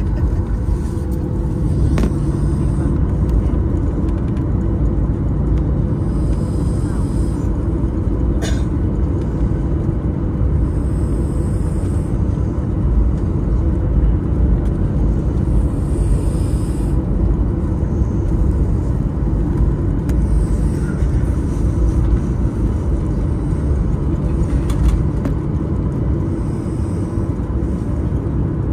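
Steady, loud cabin rumble of a Boeing 737 taxiing, heard from inside by a window seat: the jet engines at low taxi power and the wheels rolling over the taxiway, with a faint steady hum over the top and a couple of brief clicks.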